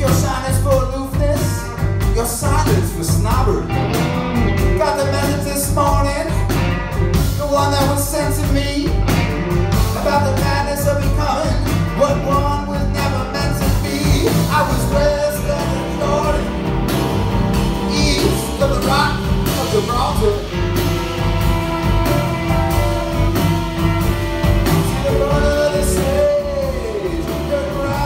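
A live band playing: a man singing into a microphone over electric guitars and a full rhythm section.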